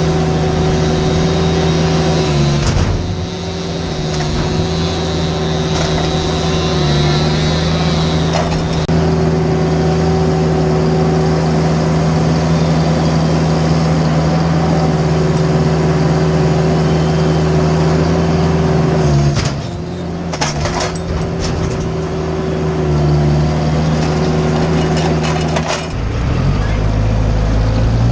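An engine running steadily at high speed, with its note dipping briefly three times: about three seconds in, around twenty seconds in, and near the end.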